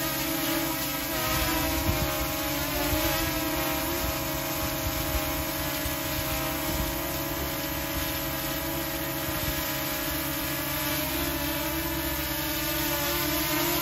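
Small folding quadcopter drone hovering close to the ground, its propellers giving a steady buzzing hum that wavers slightly in pitch.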